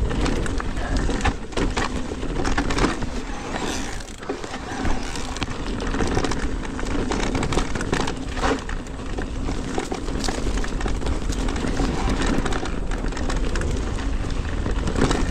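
Cube Stereo Hybrid 160 electric mountain bike ridden over rough, bumpy ground: continuous tyre and trail noise with frequent short knocks and rattles from the bike. The rider suspects the remaining rattle comes from the battery, its mount and lock in the down tube rather than the rear shock.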